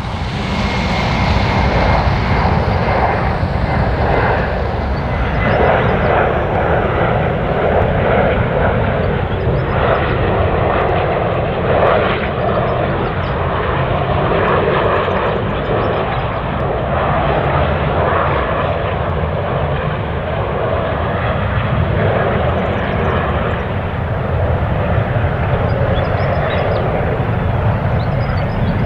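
Boeing 737-400 freighter's CFM56 turbofan engines on final approach, a steady jet noise, with a faint high whine over the first few seconds.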